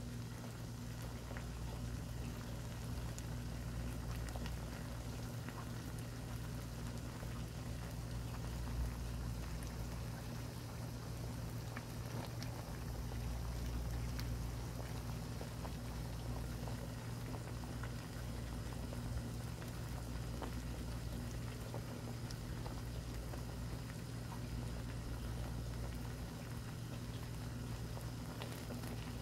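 Doenjang soup with bangpung greens boiling hard in a pan: steady bubbling with many small pops, over a low steady hum.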